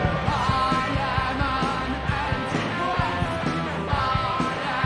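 A punk rock song with a voice singing over electric guitars and a steady, driving drum beat.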